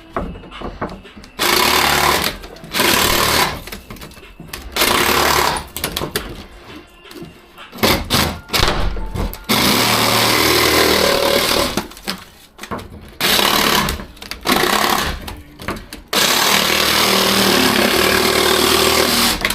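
Handheld power tool run in repeated bursts with a rapid hammering rattle, starting and stopping about eight times; the longest burst runs over three seconds near the end.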